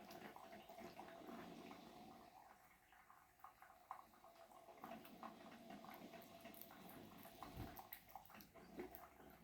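Faint wet chewing and smacking of a pet animal eating raw chicken: an irregular run of small moist clicks and squelches over a faint steady hum.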